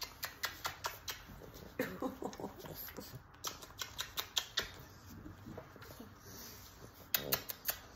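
A string of quick kisses, lips smacking on a pug's head, with a fast run of several smacks near the end.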